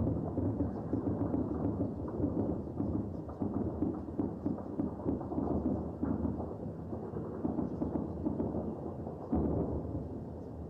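Sustained gunfire and explosions heard from a distance: a continuous low rumble with many sharp cracks of shots running through it, swelling louder near the end.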